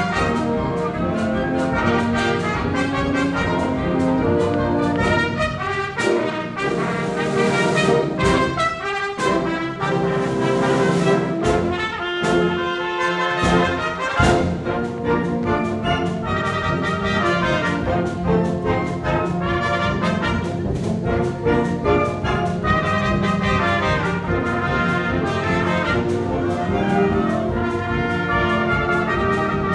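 Trumpets playing music together, a steady run of sustained brass notes.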